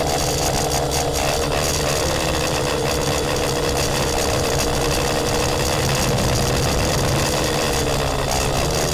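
Cheerson CX-35 quadcopter's motors and propellers running steadily, recorded by the drone's own onboard camera, as a loud whine and buzz with tones that drift slightly in pitch. The airframe is rattling too; the owner blames a loose battery bay for the vibration and the noise in the recording.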